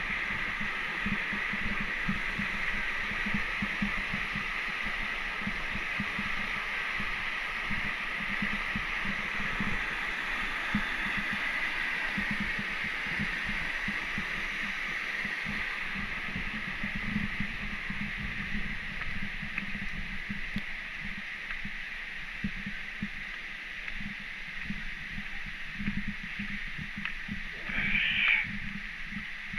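Mountain stream rushing over rocks: a steady hiss of flowing water that grows fainter in the second half. Irregular low thuds run underneath.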